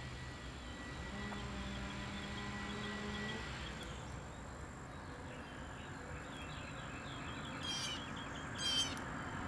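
Faint outdoor ambience: a steady insect-like drone, a low hum that stops about three seconds in, and two short chirps near the end.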